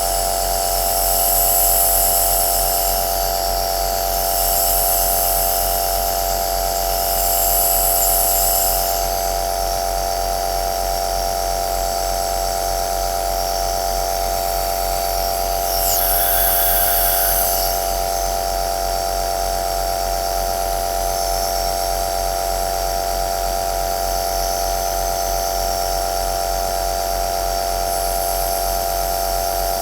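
Compressor nebulizer (aerosol machine) running steadily: a constant buzzing motor hum with an airy hiss on top. The hiss swells briefly several times, near the start, around 5 and 8 seconds in, and again around 17 seconds.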